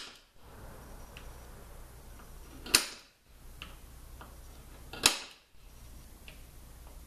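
A hand tool tapping sharply on a 5L40E automatic transmission's valve body plate, about every two and a half seconds, while check-ball positions are marked, with fainter ticks in between.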